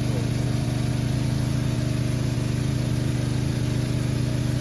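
Small petrol engine of a water pump running steadily at a constant speed, with an even throb.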